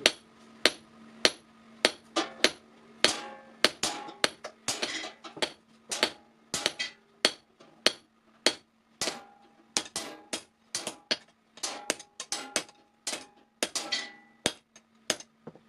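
Hand hammer striking hot steel on an anvil, forging a sickle blade: a run of sharp ringing blows, about two to three a second, with a steady low hum underneath.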